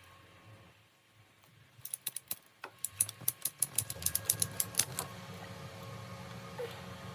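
A quick run of sharp mechanical clicks, about five a second for roughly three seconds, over a low steady hum.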